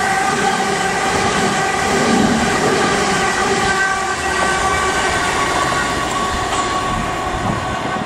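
South Western Railway Class 455 electric multiple unit passing close and moving away: wheels rumbling on the rails under a steady electric whine, slowly fading as the train recedes.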